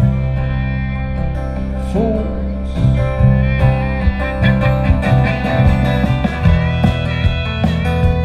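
Live band playing an instrumental passage: strummed acoustic guitar, electric bass and fiddle over drums, with the drum hits growing more prominent about three seconds in.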